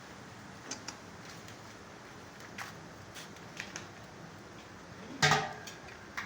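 Scattered light clicks and knocks over a faint steady hiss, with one louder short knock about five seconds in.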